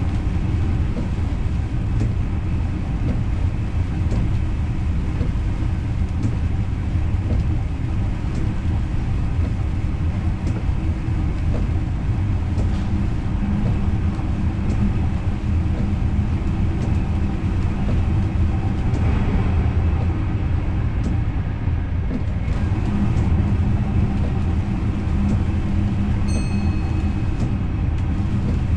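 Intercity train running on the rails, heard from the driver's cab: a steady low rumble with scattered clicks. A brief high tone sounds about two seconds before the end.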